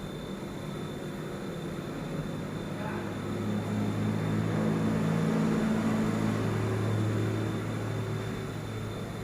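A low, steady machine hum that swells louder in the middle and then eases off.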